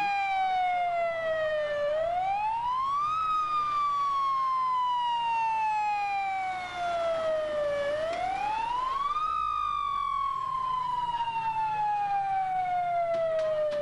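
Fire engine siren wailing: its pitch rises quickly about two seconds in and again about eight seconds in, each time falling slowly afterwards, and it stops suddenly at the end.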